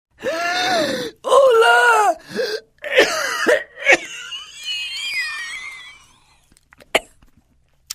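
A man's harsh, dry coughing fit: several strained, voiced coughs in the first four seconds, then a long whistling wheeze as he struggles for breath. A short sharp click about seven seconds in.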